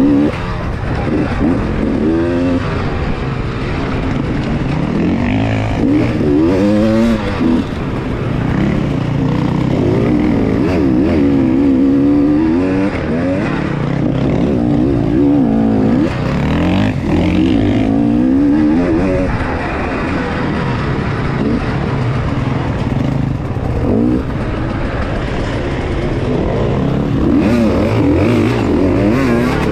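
Enduro dirt bike's engine heard on board, revving up and falling back again and again as the throttle is opened and closed, with other dirt bikes running close by.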